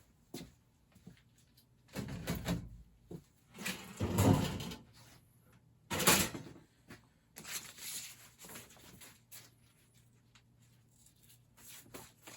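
A few knocks, scrapes and rustles of hands-on work on furnace ductwork. The loudest thump comes about four seconds in and a sharp crack about six seconds in.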